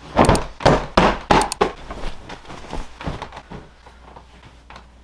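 A quick run of sharp thumps and knocks, about six loud ones in the first second and a half, then lighter taps that die away over the next two seconds.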